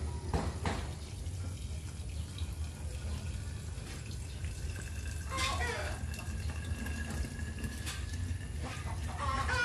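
Water pouring in a steady stream into a plastic bottle, splashing and filling inside its narrow neck.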